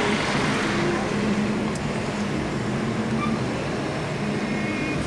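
Steady traffic noise of cars driving along a city street, a continuous rumble with a low hum.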